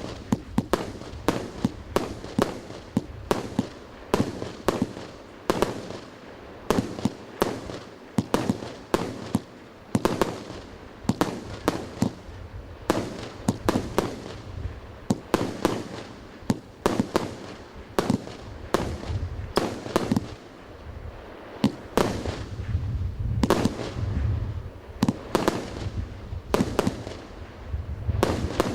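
Fireworks firing in a rapid string of sharp bangs, about two or three a second, each with a brief fading tail.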